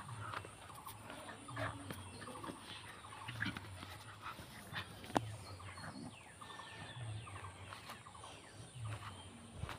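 Two dogs wrestling in a mock fight, giving repeated short, low growls, with scuffling on dry dirt.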